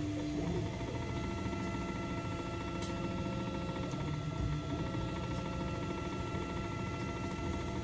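Ultimaker 3 3D printer at work: its stepper motors whine in short steady tones that shift in pitch as the print head changes moves, over a steady hum, with a few faint ticks.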